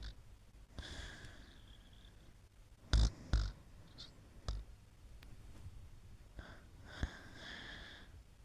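Sleep breathing and snoring, with two short sharp snorts about three seconds in and another a little later. Some breaths carry a whistling tone, the longest near the end.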